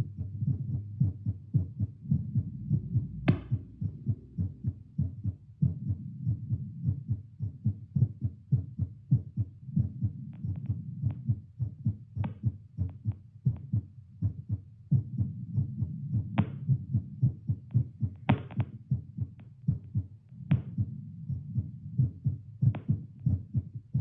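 Her own heartbeat heard through a Littmann CORE digital stethoscope held on the chest and played aloud: a quick, regular train of thuds over a low hum, still raised as it settles after ten squats. A few sharp clicks cut in now and then over the beats.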